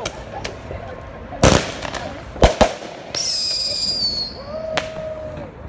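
Fireworks going off overhead: a string of sharp bangs, the loudest about a second and a half in. A high whistle sounds for about a second from around three seconds in, falling slightly in pitch.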